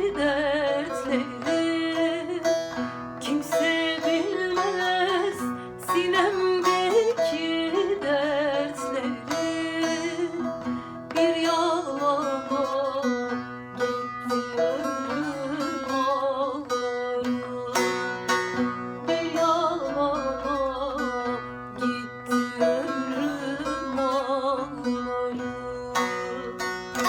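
Turkish folk music: a plucked string instrument plays a flowing melody with sharp, quickly repeated plucks and ornamented turns.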